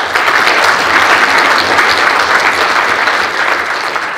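Audience applauding, loud and steady, easing off slightly near the end.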